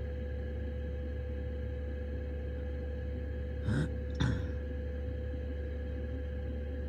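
Steady drone with a constant whine from a diesel night heater running under a camper van. About halfway through, two short breathy noises from a person, about half a second apart, are the loudest sounds.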